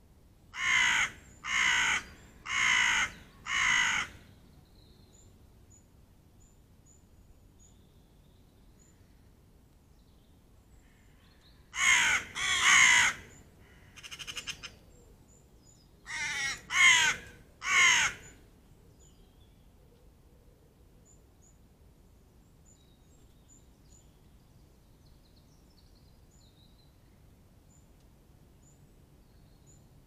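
A crow cawing in runs: four caws about a second apart, then a second run of caws about twelve seconds in and a third of three caws around seventeen seconds in. Faint high bird chirps come in between.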